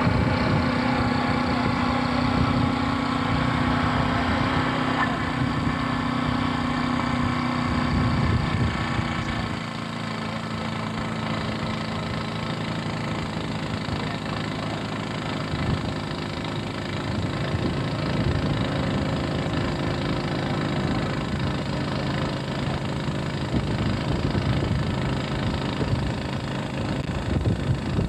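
Gasoline walk-behind snowblower engine running steadily under load as the machine cuts through packed snow and throws it aside.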